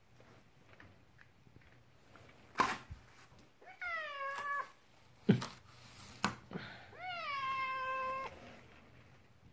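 House cat meowing twice, each call rising and then sliding down to a held note, the second longer than the first. Several sharp knocks before and between the meows are the loudest sounds.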